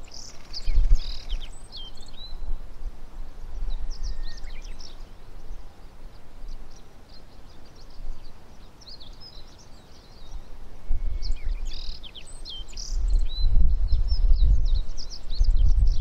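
Male black-faced bunting singing: several short phrases of quick, high, varied notes, with a few seconds' pause between the early phrases and a run of phrases in the second half. A low, gusting rumble lies under the song and rises in the second half.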